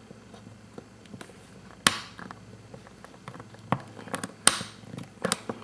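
Sharp clicks and light scraping as a piezoelectric igniter is forced by hand into a tight hole in a wooden block. There is a single click about two seconds in, then a quick run of clicks and a short scrape near the end.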